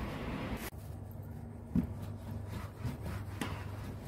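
Sponge rubbing and scrubbing on a car's interior door trim panel, with one short thump a little under two seconds in.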